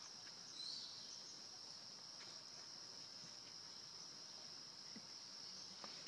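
Steady, faint, high-pitched drone of insects, with a brief faint squeak just under a second in and a few soft clicks later.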